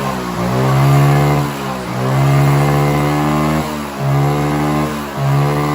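A 160 cc single-cylinder motorcycle engine is revved several times in a row, its pitch rising and falling with each twist of the throttle. It is being held back by a clogged air filter, so it bogs and cannot rev freely.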